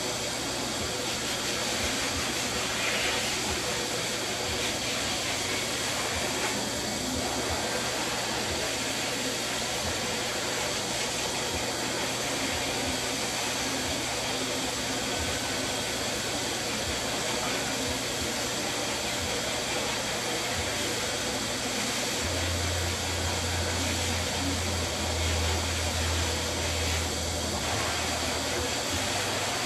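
Corded electric dog clippers with a #4 blade running steadily as they shave through a Labradoodle's curly coat, a constant whirring hum. A deeper low hum comes in about twenty-two seconds in.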